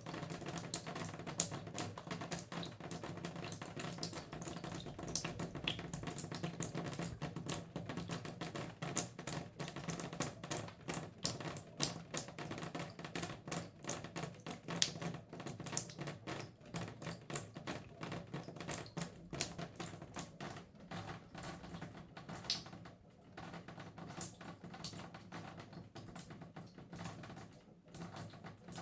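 Shower water spattering and dripping, a dense irregular patter of drops over a steady watery hiss. In the last few seconds the hiss drops away and the drops come sparser and more separate.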